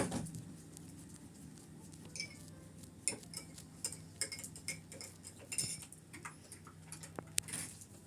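Scattered light clicks and a few short ringing clinks, typical of crockery and cutlery being handled, over a faint steady hum.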